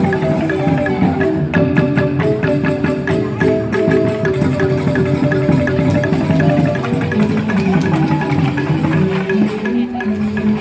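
Balinese joged bumbung gamelan playing: bamboo xylophones (grantang) struck fast with mallets, together with percussion, in a dense, steady rhythm.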